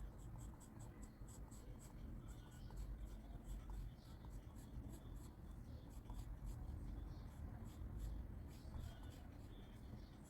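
Pencil scratching on paper in a quick run of short, repeated strokes, faint and steady.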